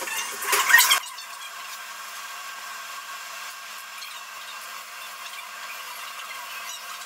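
Kitchen noise during cooking: a brief burst of clattering in the first second, then a steady hiss.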